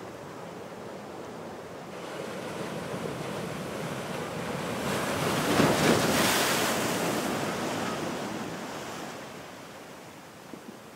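Ocean surf breaking on the beach: the wash swells to a peak about halfway through and then dies away.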